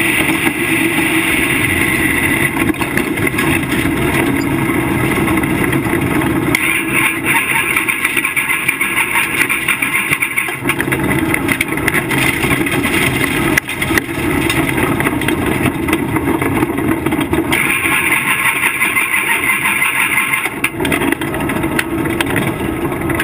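Modified race car's V8 engine running hard, heard from inside the cockpit, its sound swelling and easing every few seconds as the throttle is opened and lifted around the track.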